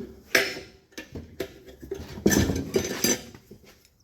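Tire irons clinking and scraping against the wheel rim in several sharp knocks as a dirt bike tire's bead is levered onto the rim.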